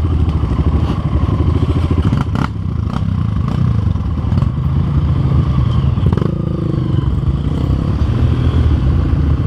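Dirt bike engines running at low speed on a rough trail, with a few knocks and rattles from the bike, notably about two and a half and six seconds in.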